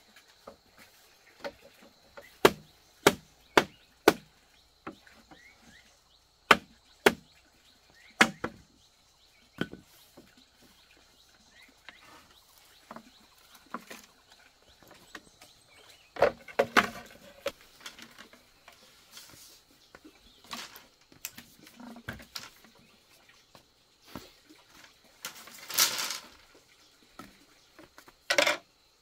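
Irregular sharp wooden knocks and chops, struck one at a time about half a second to a second apart, with quieter handling and rustling sounds between them. Near the end comes a longer rasping scrape.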